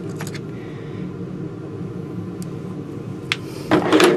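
Tools and bits being handled: a light click just after the start and another about three seconds in, then a short clatter of hard pieces knocking together near the end, over a steady low hum.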